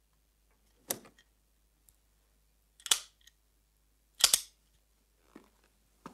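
Three sharp clicks and knocks from handling a wooden trunk and a revolver: one about a second in, one near three seconds, and the loudest just past four seconds, with a few faint ticks near the end.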